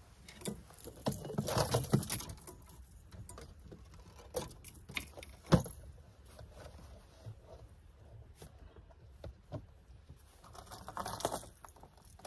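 Scattered clicks, rattles and rustles of fishing lures and tackle being handled while a new lure is picked out, with one sharp knock about five and a half seconds in.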